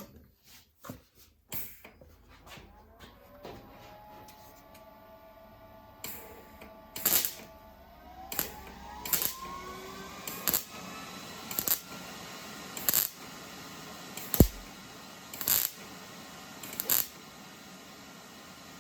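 Welder laying a series of short tack welds to fill a rust hole in a car's sheet-metal hood, about one brief burst every second or so, kept short to avoid warping the thin panel.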